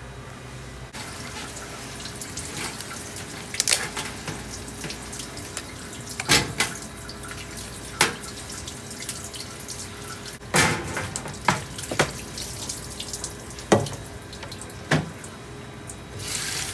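Tap water running into a stainless steel sink, starting about a second in, with a string of sharp cracks and clacks as lobster shells are broken apart and knocked against the perforated steel tray.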